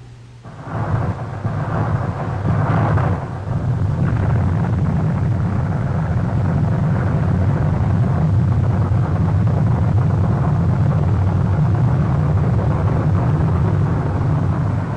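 Rocket engine running at launch: a loud, deep, steady rumble with a hiss, coming in about half a second in and uneven for the first few seconds before settling.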